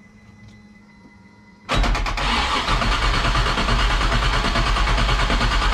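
GM LS V8 engine in a Pontiac Trans Am GTA starting for the first time after seven months in storage. After a faint steady hum, it catches almost at once, about two seconds in, then runs loud and steady.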